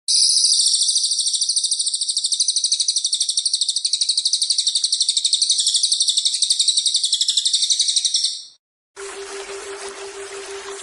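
Cililin bird singing one long, fast, high-pitched trill that cuts off after about eight seconds. After a short gap, rushing waterfall noise with a steady low tone comes back near the end.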